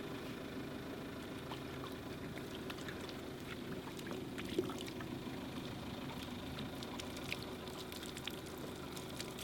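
Water poured over a freshly milled wood slab, a steady splashing trickle with scattered small drips, over a low steady hum.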